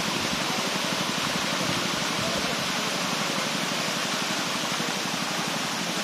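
Fast river water and waterfall rushing: a steady, dense hiss that does not let up.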